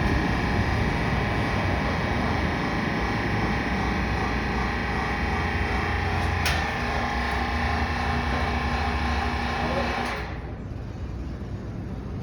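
Hydraulic pump of a frame-straightening rig running steadily while the cylinder pushes on the truck's bent frame rail, with a sharp click about six and a half seconds in. The pump cuts off about ten seconds in, once the rail has been pushed straight.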